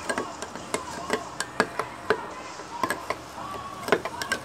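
A metal spoon stirring crushed ice in a glass of milk and banana, clinking irregularly against the glass and the ice with short ringing tones.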